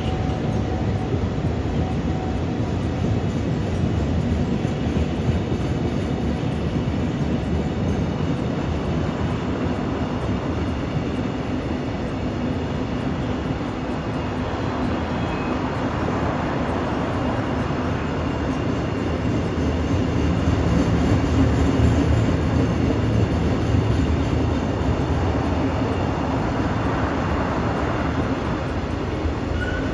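Train running along the track: a steady rumble of wheels on rails that swells a little about two-thirds of the way through.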